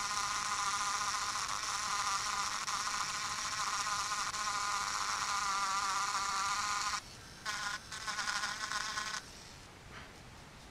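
Rechargeable pen-style mini grinder running with a high, steady buzzing whine as its tip grinds solder mask off the copper pads of a circuit board. It cuts out about seven seconds in, runs in two short spurts, then stops about nine seconds in.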